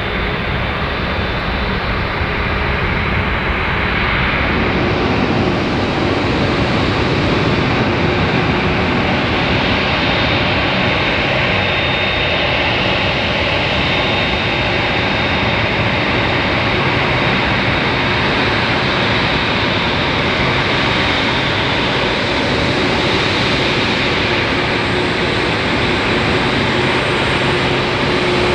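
Boeing 747-8F's four GEnx turbofans running at taxi power: a steady jet rumble and hiss with a faint high whine. It grows a little louder about four seconds in.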